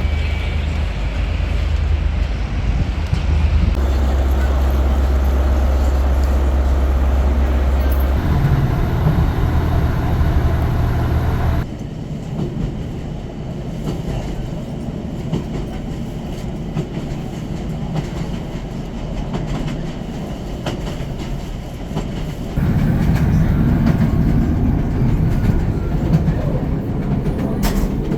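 Train running on rails: a steady rumble with some clickety-clack, in several joined clips that change abruptly about 4, 8, 12 and 23 seconds in.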